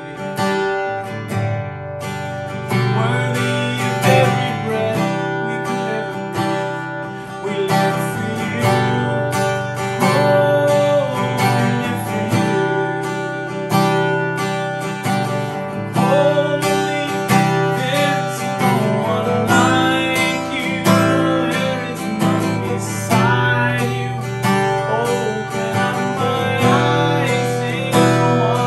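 A man singing while strumming chords on an acoustic guitar, in a steady strumming rhythm.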